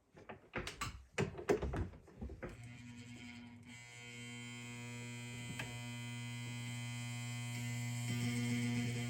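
A few clicks and knocks of handling at the sewing machine, then, about two and a half seconds in, the sewing machine's electric motor starts running steadily. It makes a humming whir that grows gradually louder as it sews.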